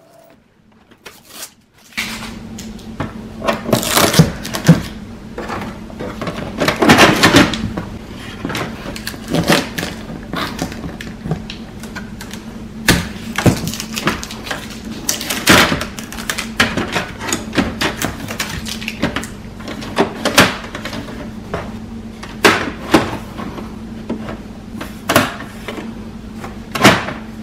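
Blue packing tape being peeled off a printer's plastic paper tray, with rustling and a string of sharp plastic clicks and knocks as the tray is handled, over a steady low hum.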